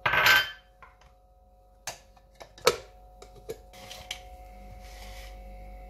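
A brief loud rush of noise at the very start, then scattered sharp clicks and light knocks of kitchen containers being handled on a stone countertop, with a faint steady hum in the last couple of seconds.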